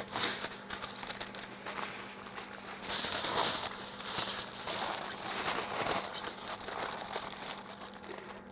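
Aluminium foil crinkling and crumpling as it is folded and pressed tightly around a large piece of meat by gloved hands, in irregular rustles throughout.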